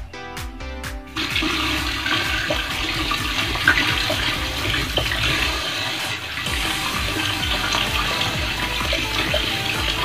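Water from a wall tap running and splashing, starting about a second in, as a washing machine's rubber drain seal is rinsed clean under the stream.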